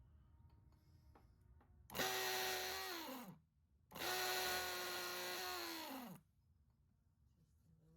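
Small electric motor switched on twice, running a second or so and then about two seconds, each time starting abruptly and winding down in pitch when switched off.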